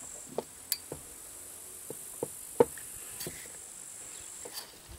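Scattered small metal clicks and taps as a hex key works at the hex bolts holding a chainsaw's muffler, over the steady high chirring of insects.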